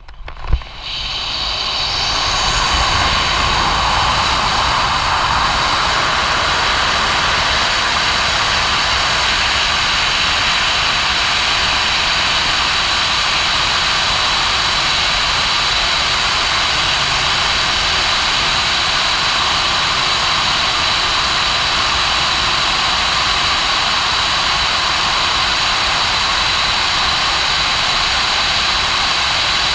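Rushing wind on a head-mounted camera during a BASE jump in a tracking suit, rising over the first couple of seconds as the jumper picks up speed and then holding as a steady loud rush. A single thump sounds about half a second in, at the exit.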